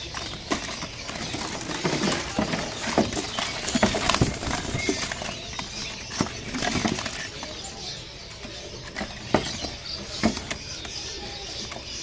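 Common ioras fluttering and hopping about a crowded cage, giving many short wing flaps and light knocks of feet and wings against the perch and bars, over a busy bird-market background.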